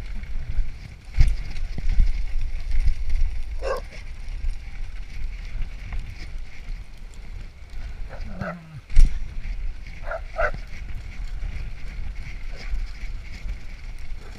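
Dogs giving a few short barks, about four seconds in and again around eight and ten seconds in, over a steady rumble of wind and jolting movement as the camera travels fast along a dirt trail. A sharp knock about nine seconds in is the loudest moment.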